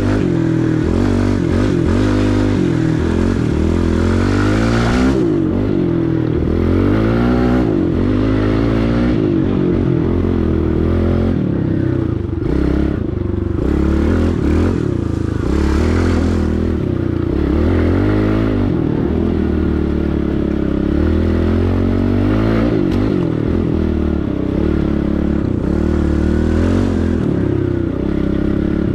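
Pit bike engine running as the bike is ridden, its pitch rising and falling again and again with the throttle.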